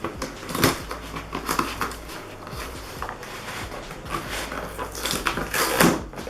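Irregular crackling, rustling and clicking of packaging being handled and torn open, with a couple of louder crunches.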